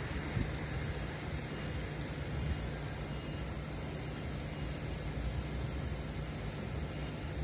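Steady road-traffic background at a junction held by temporary signals: a low, even rumble of engines and tyres.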